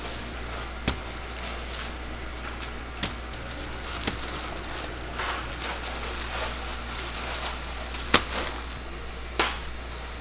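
Deep-frying fish cakes sizzling steadily in a tray of hot oil, with a few sharp clicks and knocks of utensils at intervals, the loudest about eight seconds in.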